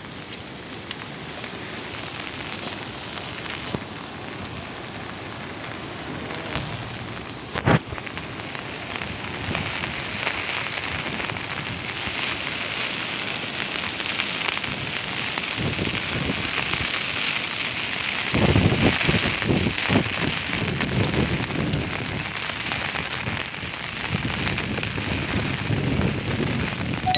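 Steady hiss of heavy rain falling on the bridge, with gusts of strong wind buffeting the microphone from about two-thirds of the way in. There is one sharp knock about a third of the way in.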